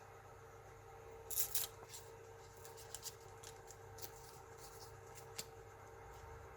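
Faint handling noises, light clicks and rustles of hands working parts of a 3D printer, over a faint steady hum.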